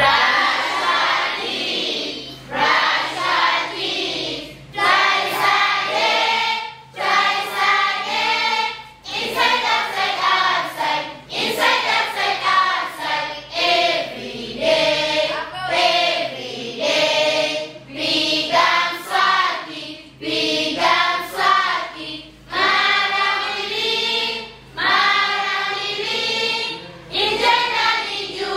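A group of children singing together in short repeated phrases with brief pauses between them.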